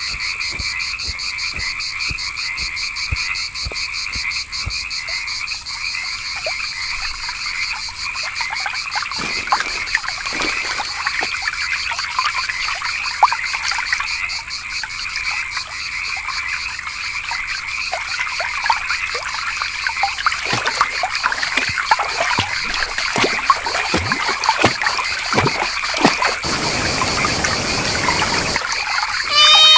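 Dense night chorus of frogs croaking, over a steady high, fast-pulsing trill. About three-quarters of the way through, the rush of a waterfall comes in. At the very end a loud, sudden pitched cry breaks in.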